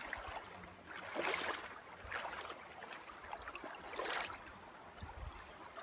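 Feet wading through shallow river water, with splashing steps about a second in, again about two seconds in, and near four seconds, over the steady rush of the river.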